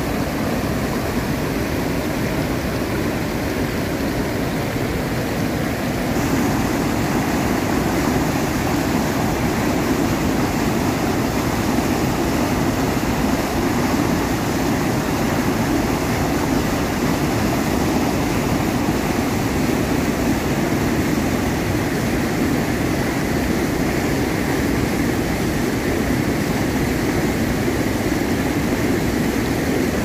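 Muddy river floodwater pouring over a low dam spillway and churning below it: a loud, steady rush of water that grows a little louder about six seconds in.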